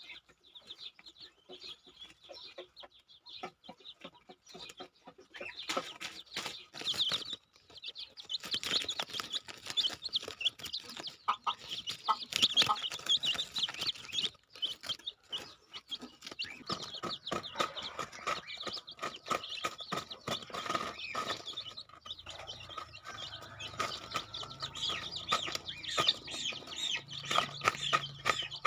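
Chickens clucking with many short, high chirping calls, quieter at first and busier from about six seconds in.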